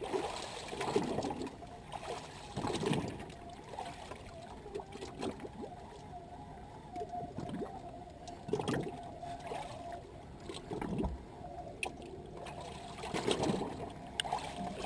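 Water lapping and sloshing against the hull of a drifting boat, swelling briefly every few seconds.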